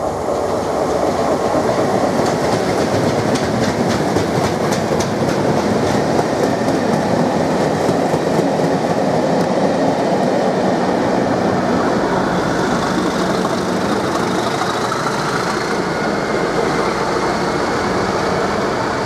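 Ultrasonic test train hauled by Class 37 diesel 37025, passing at speed: a loud, steady rumble with rapid wheel clicks over rail joints a few seconds in, and a faint rising whine in the second half.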